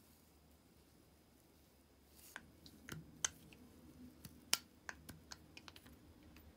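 Small, irregular clicks and light taps from handling an antique pepper grinder's wooden body and its rusty metal grinding ring in gloved hands. They start after about two seconds of near quiet and come as a loose string of about a dozen, the loudest about halfway through.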